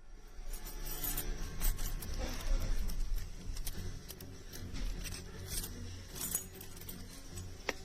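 Toy keys jangling with scattered light clicks, over a low steady rumble.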